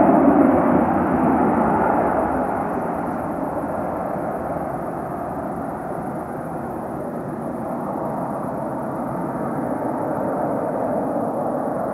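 The twin rear-mounted Pratt & Whitney JT8D turbofans of a McDonnell Douglas MD-82 climbing out after takeoff: a rushing jet rumble. It is loudest at first, fades over the first few seconds as the jet pulls away, then holds steady with a slight swell near the end.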